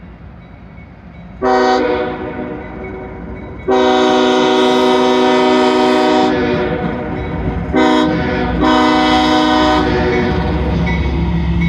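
CSX GE ES40DC locomotive's Nathan K5HL five-chime air horn sounding a grade-crossing sequence: a first blast, a long blast, then two shorter ones close together. Near the end the deep rumble of the locomotives' diesel engines rises as they pass close by.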